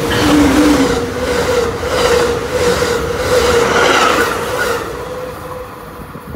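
A Pacific Surfliner passenger train led by a Siemens Charger diesel locomotive passes close by. There is a loud rush with a steady hum and a regular rhythmic clatter as the locomotive and bi-level coaches go by. It fades about five seconds in as the train clears.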